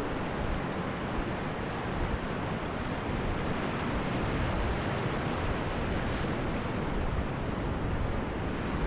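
Whitewater rapid rushing steadily around a paddle boat, with wind buffeting the microphone as a low rumble.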